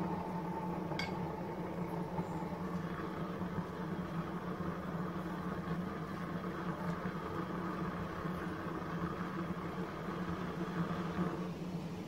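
Gas burner firing into a small coffee can furnace with a steady roar. There is a brief click about a second in, and the sound eases slightly near the end.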